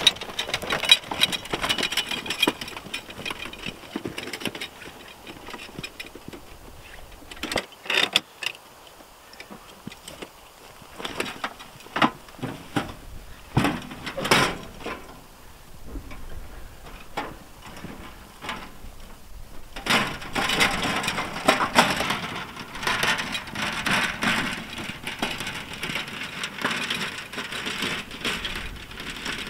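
Metal wheelbarrow clanking and rattling: scattered knocks as it is handled and tipped to dump a load, then a longer stretch of rattling from about twenty seconds in as it is pushed across the bumpy meadow.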